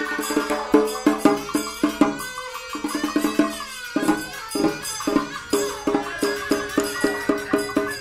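Traditional Vietnamese ceremonial music: a fast, even run of short struck or plucked notes with wood-block-like clicks, over a sliding melody line, thinning briefly a little past two seconds in.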